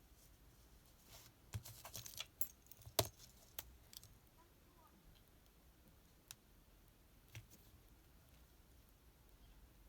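Small clicks and light metallic taps from handling a Casio F91W watch, its strap pin and a needle tool: a quick cluster about a second in, the loudest tap near the middle of the cluster, then two single clicks later.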